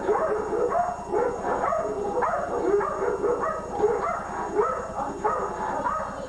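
Dutch Shepherd dog barking and yipping over and over, short calls coming several times a second without a break.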